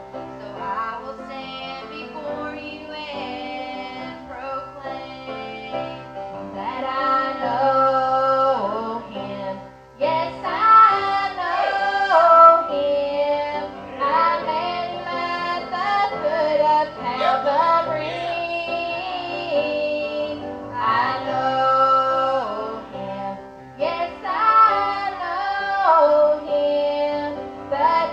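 Two women singing a song together with instrumental accompaniment, in phrases with short breaths between them.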